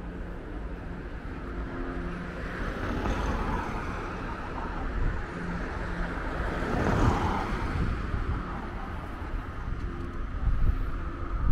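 Road traffic going by on the street, with one car passing loudest about seven seconds in, over a steady low rumble of wind on the microphone.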